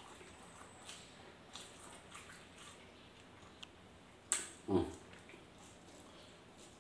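Eating sounds from a person eating with his hands: faint chewing and small lip smacks. A louder smack comes about four seconds in, followed at once by a brief voiced grunt or hum.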